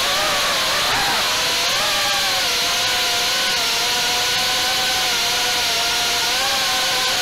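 Brushless motors and propellers of a 3-inch FPV quadcopter whining in flight, picked up by the onboard camera: several close tones from the motors over a propeller hiss, mostly steady in pitch with a dip and rise about a second in as the throttle changes.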